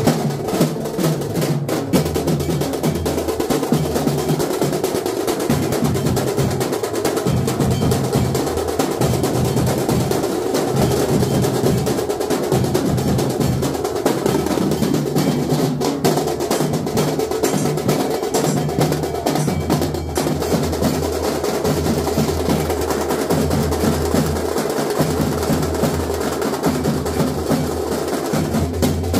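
Loud procession drumming: rapid drum rolls and beats, driven on without a break over a steady low bass.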